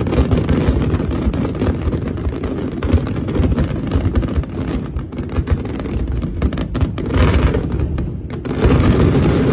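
Aerial fireworks barrage: a dense, unbroken run of shell bursts and bangs over a heavy low rumble, swelling louder about seven seconds in and again near the end.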